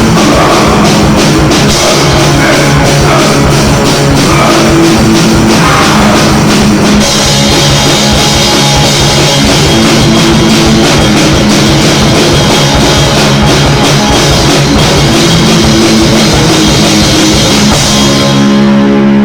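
Band rehearsing loud heavy rock: a drum kit with crashing cymbals under distorted electric guitar chords that shift every second or two. Near the end the drums and cymbals stop, leaving one guitar chord ringing.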